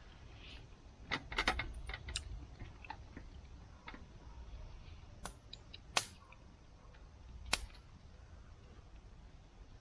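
Sharp clicks and light taps of small hard objects: a quick cluster about a second in, then three single sharp clicks a little apart near the middle.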